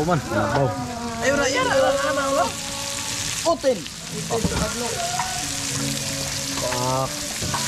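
Food frying in hot oil, a steady sizzle, with background voices at times over it.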